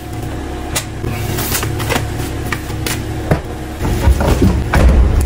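A car's tailgate being opened and things handled in the boot: scattered clicks and knocks over a steady low hum, with heavier thumps and bumps about four to five seconds in.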